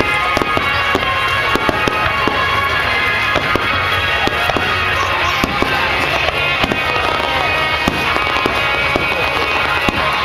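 Fireworks bursting in a rapid stream of sharp bangs and crackles, with music playing underneath.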